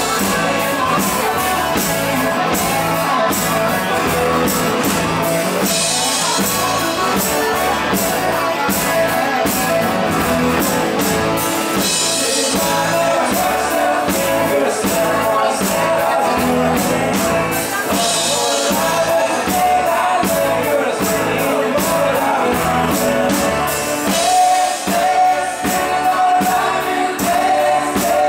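Live rock band playing with sung vocals: drum kit, bass guitar, acoustic and electric guitars. A bright crash comes roughly every six seconds over a steady beat.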